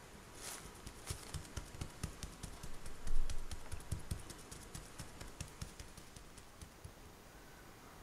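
Gloved fingertips pressing and tapping raw pastry rings down onto a perforated baking mat: a quick run of small clicks and soft taps, busiest around the middle and thinning out near the end.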